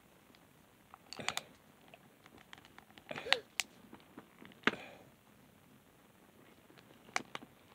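Small plastic Hatchimals toy egg being squeezed and pried at by fingers: scattered sharp plastic clicks and taps, a few at a time, as the shell is worked at its seam.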